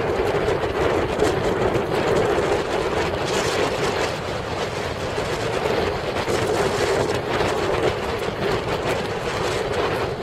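Wind buffeting the microphone over the steady hum of a motorboat's engine running, with choppy water around the hull.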